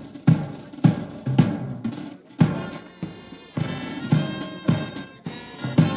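Music with a steady drum beat, a little under two hits a second; pitched instruments join in about three and a half seconds in.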